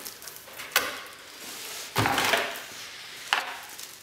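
Cardboard shipping box being handled and pushed aside on a table: a sharp tap, then a heavier thump with a brief rustle about two seconds in, and another tap near the end.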